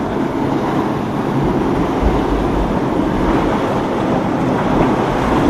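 Motorboat engine running, heard over the rush of surf, with wind buffeting the microphone from about a second and a half in.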